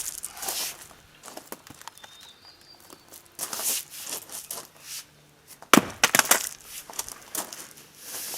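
Fiskars 28-inch splitting axe striking firewood once, hard, a little under six seconds in, with a quick rattle of wood clicking just after. Scraping and handling of wood comes before the strike.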